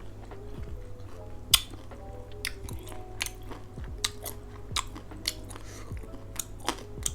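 A person chewing and biting food close to the microphone, with irregular crisp mouth clicks and one sharp click about a second and a half in. Quiet background music plays underneath.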